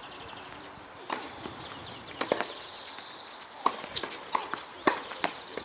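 Tennis ball being struck by rackets and bouncing on a hard court: sharp single pops at uneven gaps, a few bunched close together about two seconds in and several more in the second half.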